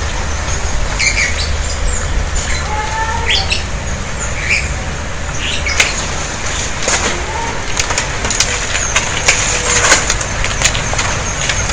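Leafy branches rustling as a man handles and cuts twigs from a tree, with scattered sharp clicks over a steady low rumble. Small birds chirp briefly now and then.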